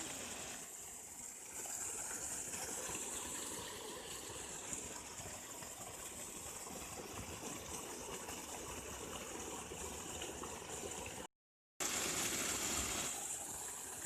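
Water gushing steadily from an irrigation pump set's outlet. It breaks off for half a second about eleven seconds in, then resumes.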